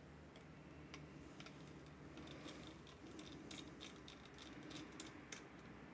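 Faint, irregular light clicks and ticks of a small screwdriver driving the tiny retaining screw that holds an M.2 SSD down in an Intel NUC mini PC; the clicks come more often from about two seconds in.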